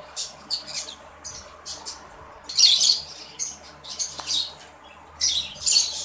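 Green-cheeked conures giving a string of short, high-pitched chirping calls, loudest about two and a half seconds in and again near the end.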